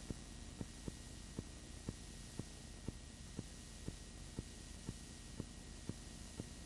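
Steady hiss and low hum of background recording noise, with a faint sharp tick repeating about twice a second.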